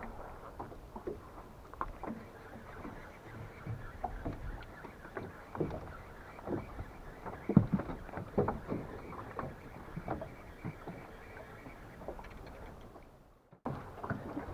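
Small waves lapping and slapping against a metal boat hull: an irregular run of light knocks and splashes. The sound drops out briefly near the end.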